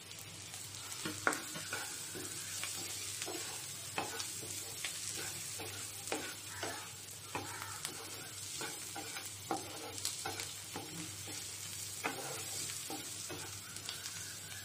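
Garlic prawns sizzling in oil in a nonstick frying pan on low heat, while a wooden spatula stirs them. Irregular scrapes and knocks of the spatula on the pan sound over the steady sizzle.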